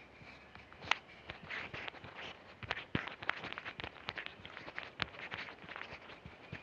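Footsteps on an asphalt lane: a quick, irregular run of light taps and scuffs starting about a second in.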